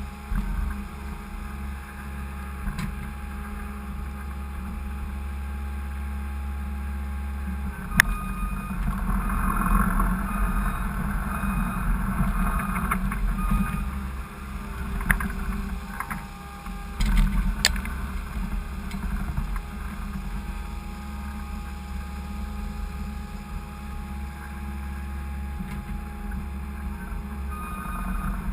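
Skid steer engine running steadily, with a sharp metallic clank about eight seconds in and a few more knocks a little past the middle.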